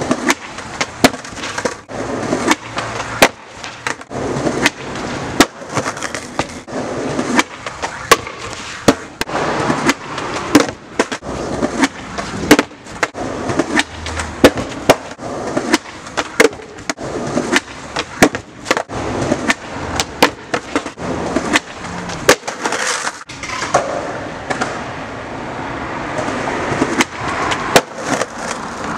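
Skateboard on concrete: wheels rolling with repeated sharp clacks and knocks, and loud board pops and slaps from a frontside bigspin attempt down a ten-stair.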